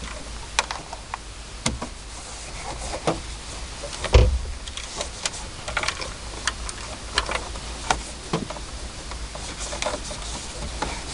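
Irregular clicks, knocks and handling noise from cleaning inside a truck cab, over a low rumble, with one heavier thump about four seconds in.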